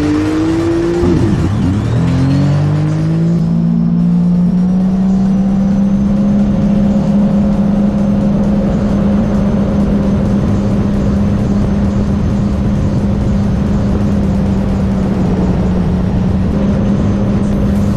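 Sea-Doo RXP-X personal watercraft's Rotax 300 engine revving up under full throttle for the first few seconds, then holding a steady high drone at wide-open throttle at top speed, with a thin high whine rising and then holding along with it.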